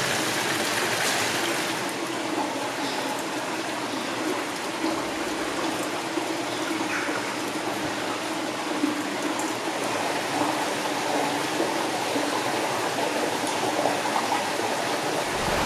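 A mountain stream running over rocks in the gorge, a steady rushing of water.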